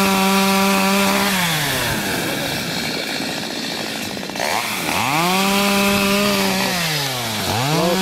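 Chainsaw engine held at high revs, dropping to idle after about a second and a half, revving up again about five seconds in, dipping briefly near the end and rising once more.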